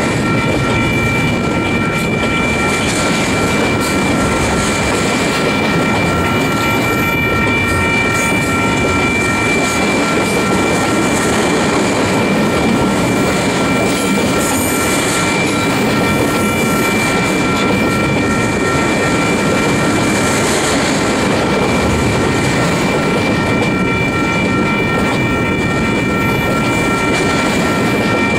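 Double-stack intermodal freight cars rolling past close by: a steady, loud rumble of steel wheels on rail with a constant high-pitched ringing tone over it.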